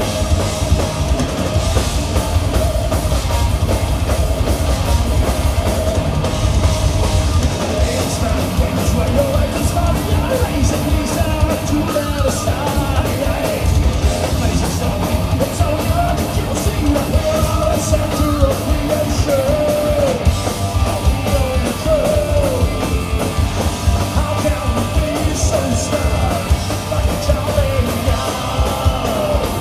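Heavy metal band playing live, recorded from within the crowd: distorted electric guitars, bass guitar and a drum kit, with a wavering melodic line running above the dense, driving low end.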